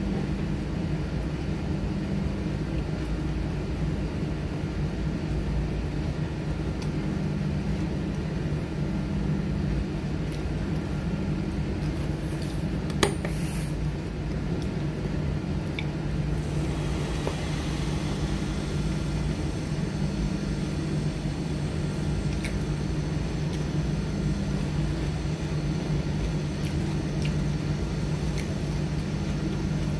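Steady low mechanical hum, with a single sharp clink of a metal fork against a ceramic bowl about 13 seconds in.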